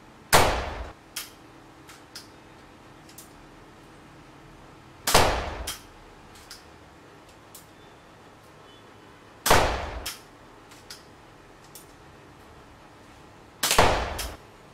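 BB air pistol fired four times, one sharp crack every four to five seconds, with lighter clicks between the shots as the pistol is worked and reloaded.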